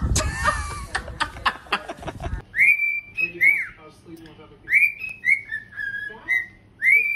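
Cockatiel whistling a tune: a run of clear whistled notes, several arching up and then down in pitch, beginning about two and a half seconds in. Before the whistling, a short noisy stretch.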